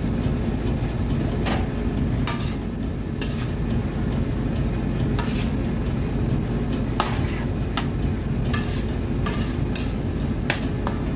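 A metal spoon stirring prawns in garlic butter in a nonstick frying pan, clicking and scraping against the pan a dozen or so times at uneven intervals. Underneath runs the steady sizzle of the frying pan and a low rumble.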